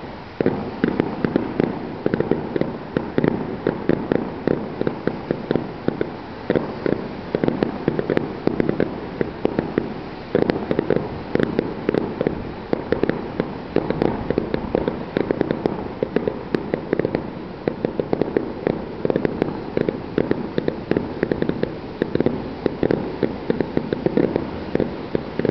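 Aerial fireworks bursting in a rapid barrage of bangs and pops, several a second, starting suddenly and never letting up.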